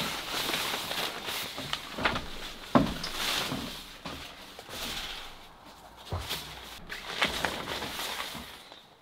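Clear urethane plastic window sheet rustling and crinkling as it is handled and fitted into place, with a few sharp knocks, the loudest about three seconds in.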